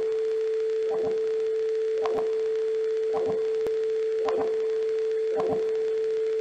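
A steady, pure electronic sine tone at one unchanging mid pitch, with a soft pulse about once a second.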